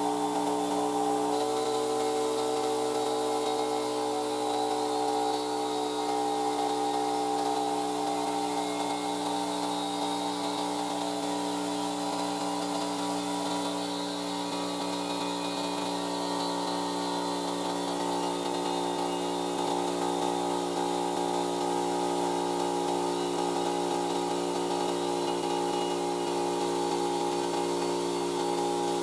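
Stanley 24-litre air compressor running steadily under load, its motor and pump giving an even, unbroken hum with several steady tones as it fills the tank from empty toward the 120 psi cut-off.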